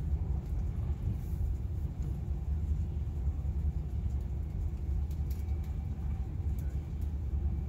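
Steady low rumble of a moving train heard from inside the passenger carriage, with a few faint light ticks.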